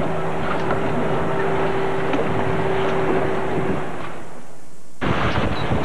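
Steady rushing wind noise on a camcorder microphone, with a low steady hum under it that stops a little past halfway. About five seconds in, the sound cuts abruptly to a different rushing wind noise.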